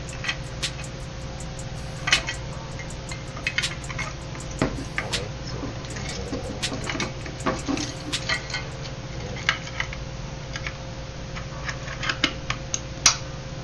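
Irregular clinks, clicks and light knocks of small metal and plastic parts being handled, the radio's mounting hardware and accessories, over a steady low hum.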